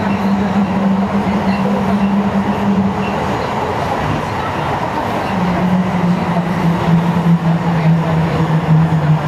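A Sendai Subway Tōzai Line linear-motor train running between stations, heard from inside the passenger car: a steady rumble with a low hum. The hum breaks off about three seconds in, then returns a little lower and sinks slowly in pitch near the end.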